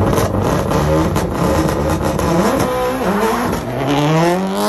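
Subaru Impreza 555 rally car's turbocharged flat-four engine revving hard as the car launches and accelerates away, with sharp pops through the first half. Near the end comes one long climb in pitch up through the revs.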